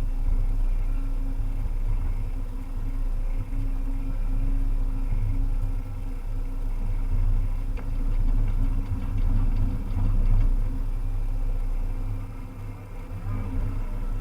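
Diesel engine of a Volvo EC300E excavator running steadily, its loudness swelling and easing as it works, with a brief dip near the end.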